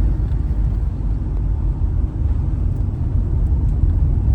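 Steady low rumble of a camper van's engine and tyres on the road while driving, heard from inside the cab.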